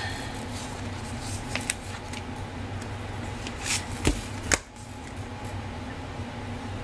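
Pages of a spiral-bound paper planner being handled and turned: light rustles and clicks, then a rustle and two sharp thumps about four seconds in as the page flips over and is pressed flat, over a steady background hum.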